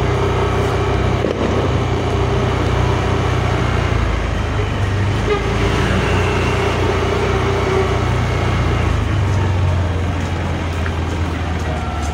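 Yamaha Mio Aerox S 155 scooter riding along in traffic: a steady engine hum under road and wind noise.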